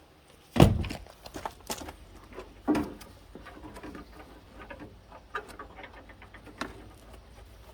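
Tools and small metal parts being handled during work on a car door: a heavy thump about half a second in, another knock about two seconds later, then scattered light clicks and taps.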